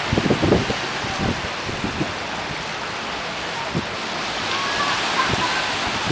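Small waves breaking and washing into the shallows at the water's edge, with wind on the microphone. There are a few short bumps in the first two seconds.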